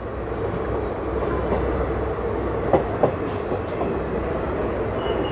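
Coaches of a passing express train rushing by close alongside on the next track: a steady rushing rumble of wheels on rail, with clickety-clack and two sharp knocks over rail joints about three seconds in.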